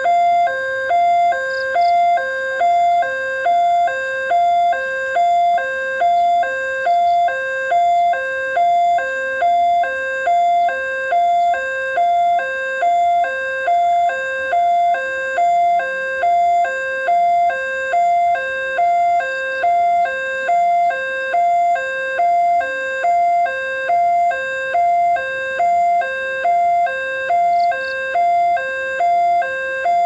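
Railway level-crossing warning siren from the horn loudspeaker on the crossing signal pole, sounding a loud electronic two-tone alarm that alternates steadily between a higher and a lower note, about one high-low cycle a second. It warns that a train is approaching and the barriers are down.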